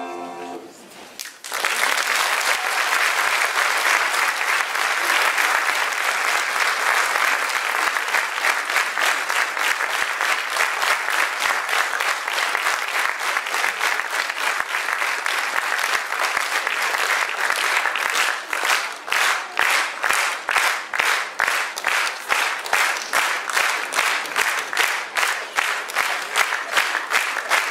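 Audience applause for a children's choir: the choir's last sung note fades out, and about a second and a half in, loud applause breaks out. About two-thirds of the way through it turns into rhythmic clapping in unison with a steady beat.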